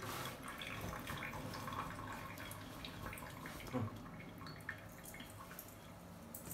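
Faint dripping and trickling of water at a sink tap, with small scattered drips.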